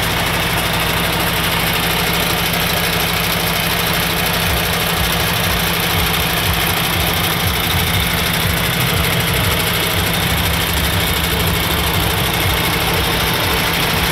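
The MAN D2676 12.4-litre inline-six common-rail diesel of a 2018 MAN TGX 18.460 tractor unit idling steadily.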